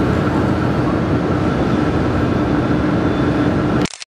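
Steady machinery noise, a constant hum and hiss with a couple of steady tones, that cuts off abruptly near the end.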